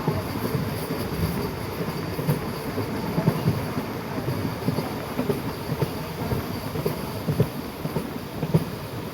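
MEMU electric multiple-unit train running on the track: a steady low rumble with irregular knocks and rattles from the wheels and carriages.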